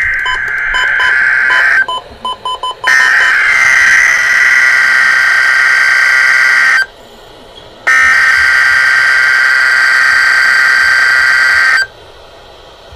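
NOAA Weather Radio SAME header for a Required Weekly Test: bursts of screeching digital data tones, the end of one and then two more of about four seconds each, a second apart. A run of short, evenly spaced beeps sounds in the first three seconds.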